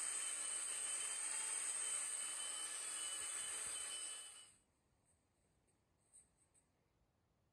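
A handheld power tool with a dust extractor attached runs steadily with a high whine and hiss, then stops abruptly about four and a half seconds in.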